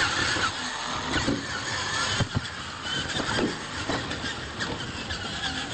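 Electric RC monster trucks' motors and gearboxes whining, the pitch rising and falling with the throttle, over the rustle of tyres on dirt, with a sharp thump about two seconds in.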